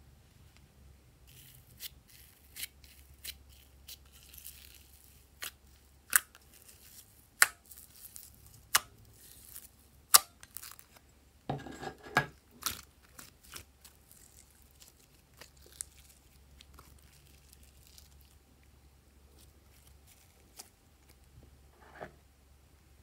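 Glossy slime being squeezed and worked by hand, giving a string of sharp sticky clicks and pops, with a denser squelching crackle about halfway through.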